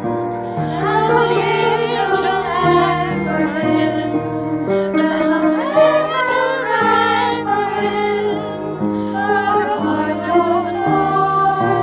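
A Christmas carol sung by women's and children's voices together over a steady instrumental accompaniment.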